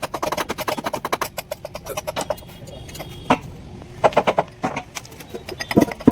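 Rapid metallic clicking, about ten clicks a second, for the first two seconds or so, then a few separate knocks and clinks of tools on metal during backhoe axle work.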